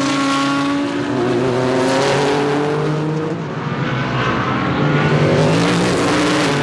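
Several GT race car engines running hard at once, their pitch sliding down as they pass and move off. Another engine rises in pitch about four seconds in.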